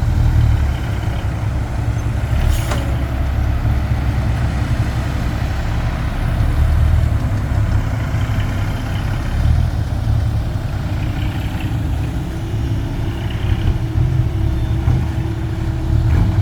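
Heavy diesel engine running with a steady low rumble, with a brief sharp hiss about two and a half seconds in and another near the end.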